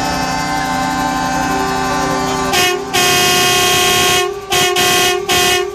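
Truck air horns sounding. A steady chord of several tones is followed, about two and a half seconds in, by louder blasts: a short one, a long one of about a second, then four quick toots near the end.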